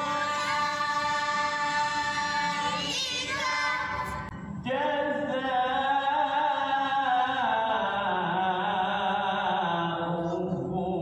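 Melodic Quran recitation in tilawah style. One long held phrase wavers in an ornament near its end, breaks off about four seconds in, and gives way to a second long phrase that winds and slowly falls in pitch.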